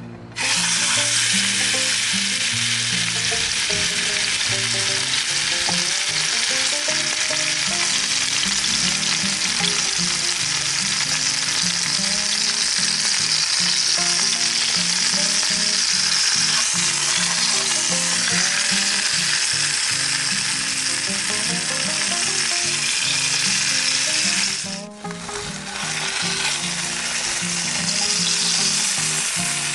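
Food frying, a loud steady sizzle that breaks off briefly about 25 seconds in and then starts again.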